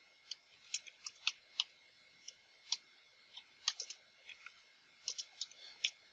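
Computer keyboard typing: irregular runs of sharp key clicks with short pauses, as a terminal command is entered.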